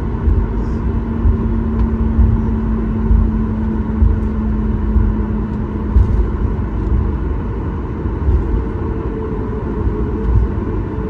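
Cabin noise inside a Boeing 737 MAX 8: a steady heavy rumble with irregular jolts, under a steady engine tone that fades out about seven seconds in. A higher steady tone comes in near the end.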